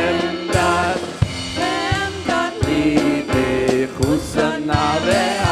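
Live worship music: voices singing a melody over a band with a drum kit keeping a steady beat.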